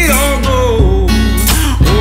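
Background country-style song with guitar and a singing voice.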